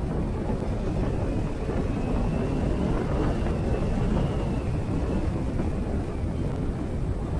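Vespa GTS scooter riding at steady speed: a constant low engine and road rumble mixed with wind rush on the microphone, with a faint high whine that drifts a little in pitch.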